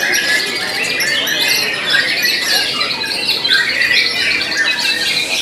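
White-rumped shamas singing in a contest chorus: many rapid whistled and chattering phrases overlap in a continuous, dense jumble of birdsong.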